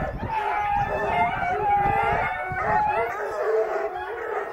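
A pack of three-month-old coonhound pups bawling together as they run a scent track: several drawn-out, overlapping howls at once, the trail voice of young hounds working a scent.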